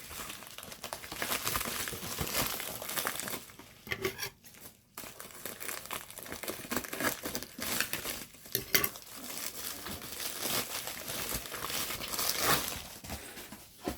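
Shipping packaging crinkling and rustling, with some tearing, as a tightly packed parcel is pulled open by hand; there is a brief lull about four and a half seconds in.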